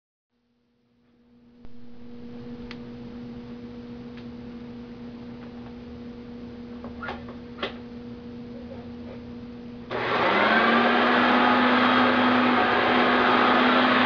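A faint steady hum with a few light clicks, then about ten seconds in a Hoover Concept One upright vacuum cleaner starts up with a sudden jump in loudness, its motor whine rising in pitch as it spins up and then running steadily.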